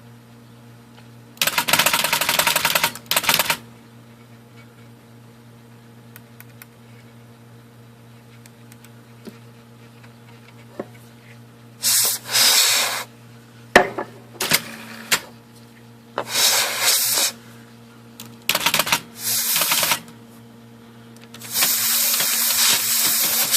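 Short hissing blasts of spray cleaner and compressed air flushing the IBM Selectric's tilt and rotate pulleys, five of them, each one to two seconds long, the longest near the end. This is done to free stiff pulleys that keep the type ball from rotating at speed. Between the blasts there is a steady low hum and a few scattered clicks.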